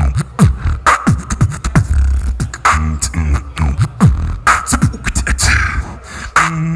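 Solo beatboxing into a handheld microphone: deep kick-drum sounds, sharp snare and hi-hat clicks and short falling-pitch bass sweeps in a fast rhythm, turning near the end into a held low hummed bass note.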